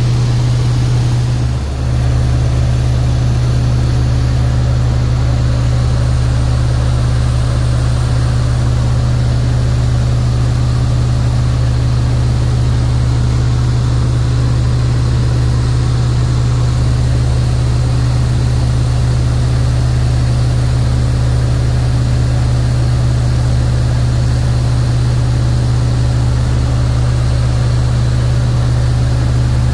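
Steady drone of the PJC-2 Harlow's Warner Super Scarab radial engine and propeller in cruise flight, heard inside the cabin, with a brief dip in loudness about two seconds in.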